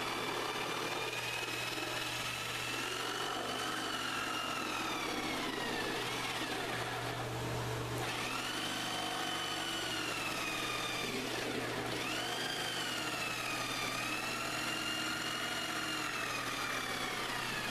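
Small handheld electric saw cutting through the thin wooden strip deck of a kayak. The motor whines steadily over a low hum, and its pitch sags under load and picks back up a few times as the blade is fed slowly along the curve.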